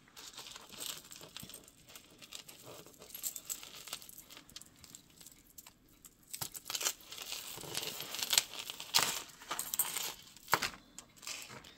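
Metal jewelry chains and pendants clinking and jingling as a tangle of necklaces is lifted and pulled apart by hand: light, irregular clicks that grow busier in the second half.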